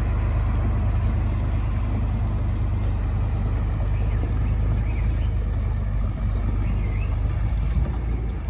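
John Deere farm tractor's engine running steadily as it pulls a loaded feed wagon, a low drone that eases off slightly near the end as the tractor moves away.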